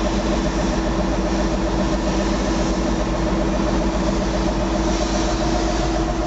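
Liebherr LRB125 piling rig's diesel engine running steadily, heard from inside the operator's cab, with a constant hum over a low, even throb.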